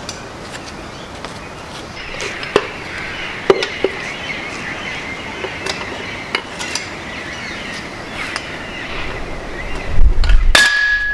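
Metal engine parts clinking and tapping as they are handled during a teardown. Near the end comes one louder knock, followed by a short ringing tone.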